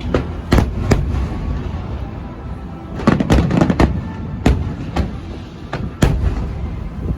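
Aerial fireworks shells bursting in an irregular string of sharp bangs, with a quick cluster of several about three seconds in, over a steady low rumble.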